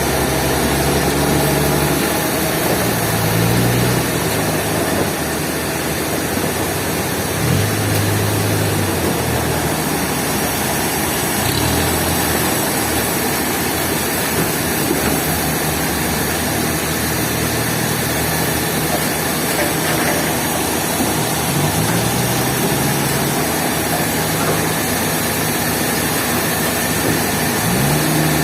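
Heavy sawmill machinery running with a steady loud noise, and an engine note that rises and falls several times as the machine works.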